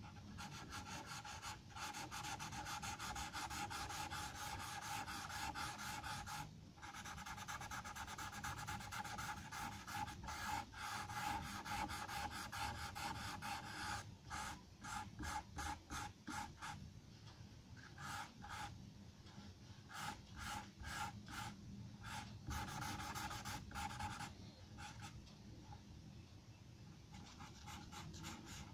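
Charcoal pencil scratching across drawing paper in rapid back-and-forth shading strokes, continuous at first, then in shorter runs with brief pauses from about halfway.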